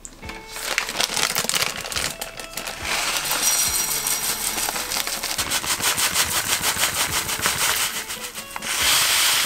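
Coarse shiratamako (glutinous rice flour) granules pouring from the bag into a glass bowl: a dense, rapid patter of small grains clicking on the glass. Near the end the stream thickens into a louder hiss of flour.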